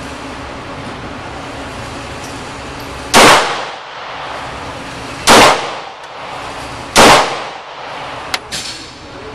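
Three 9mm Glock pistol shots, evenly spaced about two seconds apart, each loud and sharp with a short echoing tail. A much fainter sharp click follows near the end.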